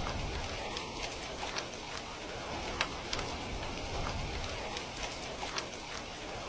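Heavy rain falling steadily, with scattered sharp drips and taps of drops striking a hard surface.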